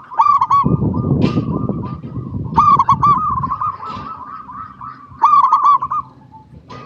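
Zebra dove (perkutut) cooing: three phrases of quick repeated coos, each under a second long, about two and a half seconds apart. A low rumble runs under the first phrase and a half.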